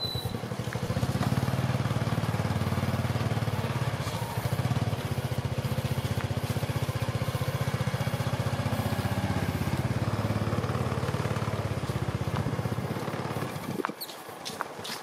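Honda Dream underbone motorbike's small single-cylinder four-stroke engine idling steadily at close range, falling away near the end.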